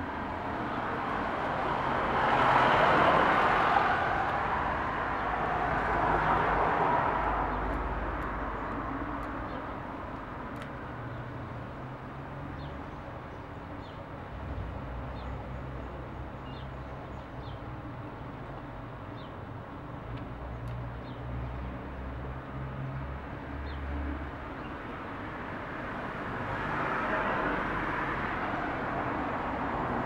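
Background ambience of passing traffic: a low rumble, with broad noise swelling and fading twice in the first few seconds and once more near the end.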